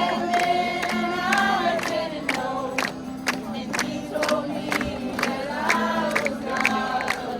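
A group of people singing a worship song together, with a steady sharp beat about twice a second.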